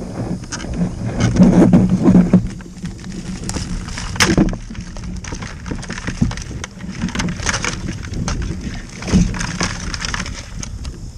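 Irregular knocks, clunks and scrapes on a kayak, louder about two seconds in, again about four seconds in and about nine seconds in, with some wind on the microphone.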